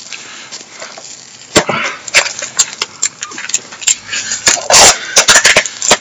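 Parcel packaging being torn and pulled open by hand without scissors: irregular crinkling rips and sharp crackles, loudest about five seconds in.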